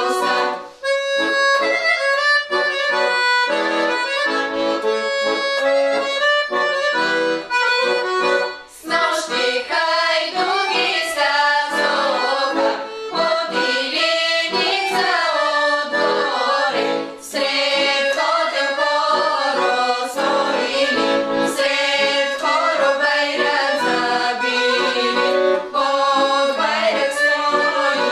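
Background music: a traditional-style tune led by an accordion, playing continuously.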